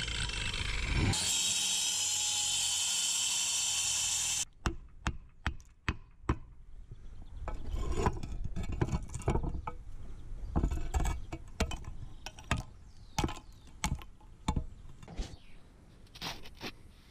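Angle grinder with a concrete cutting disc cutting through a concrete walkway slab, a steady loud grinding that stops suddenly about four and a half seconds in. After it come irregular sharp knocks and scraping.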